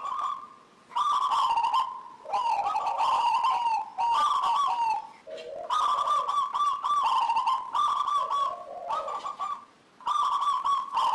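Zebra dove (local perkutut) in full song, giving its rapid, rippling coo in repeated phrases a second or two long, separated by short pauses.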